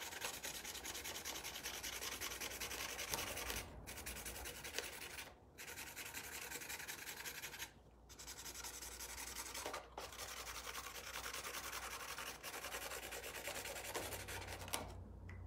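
Felt-tip marker scribbling back and forth on brown paper over cardboard, colouring in a small area, with a few brief pauses where the pen lifts.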